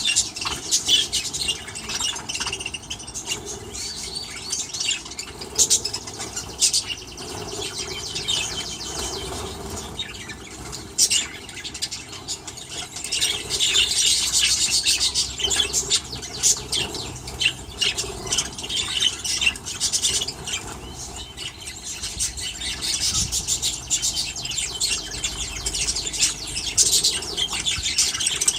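A flock of budgerigars in a colony aviary chattering and chirping continuously, many birds calling over one another, busier in stretches.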